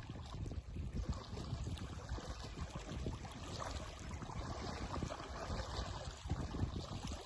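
Steady rushing outdoor noise with a low, fluttering rumble.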